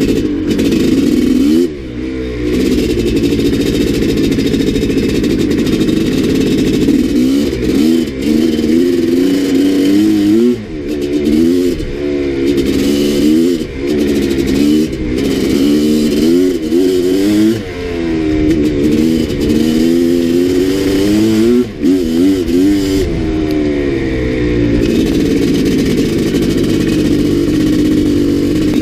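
Maico 660 two-stroke single-cylinder dirt bike engine under way, revving up and falling back again and again as the throttle is opened and closed. There are brief dips where the throttle is shut off.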